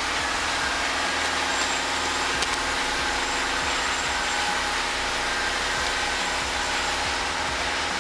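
A steady machine hum at an even level, engine-like and unchanging, with a few faint clicks.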